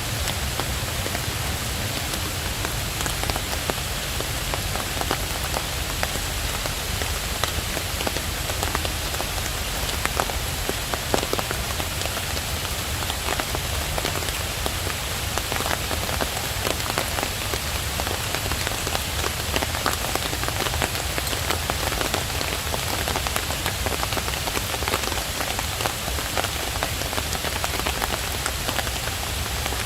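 Steady rain falling, with a dense patter of small sharp drop ticks over an even hiss.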